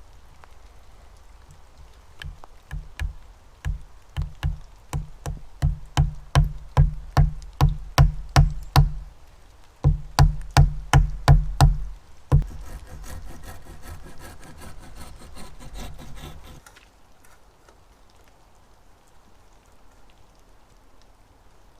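A hazel wedge being hammered into a split wooden peg with repeated knocking blows, about two a second and growing louder, then a short pause and another quick run of blows. After that come about four seconds of rasping sawing as the peg is cut off.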